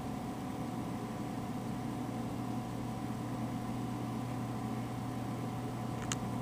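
Steady low background hum with a constant hiss, and one short click near the end.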